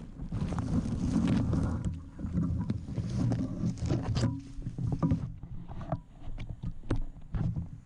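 Handling noise on the drone's onboard camera: rustling, scraping and knocks as the drone is pulled out of the foliage and gripped by hand. The rustling is dense and loud for about five seconds, then thins to scattered taps and clicks.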